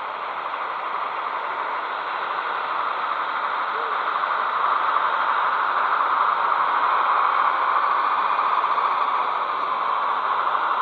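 O gauge model train running along metal track, a steady rolling hiss of its wheels on the rails that grows gradually louder.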